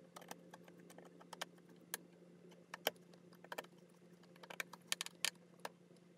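Scattered small clicks and taps of a potentiometer's wire leads being fastened into an inverter's control terminal block, over a faint steady hum.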